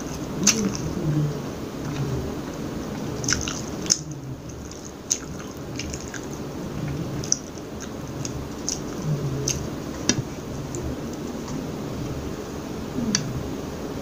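Close-miked chewing of a mouthful of food, with wet mouth smacks and sharp clicks at irregular intervals.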